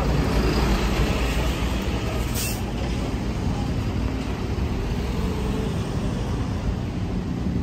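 Road traffic on a street: a steady rumble of passing vehicles, with a short high hiss about two and a half seconds in.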